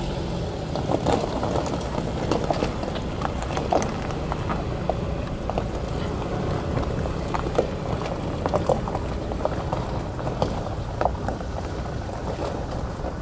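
The 1.8 MIVEC four-cylinder engine of a 2015 Mitsubishi ASX idling as a steady low rumble, with wind buffeting the microphone and scattered short crackles.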